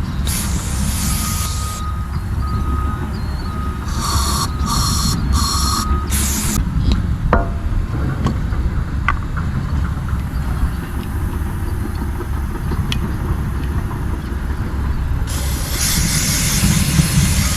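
Compressed air hissing in blasts from an air line: one just after the start, four quick blasts about four to six seconds in, and a long steady blast near the end. An engine runs steadily underneath.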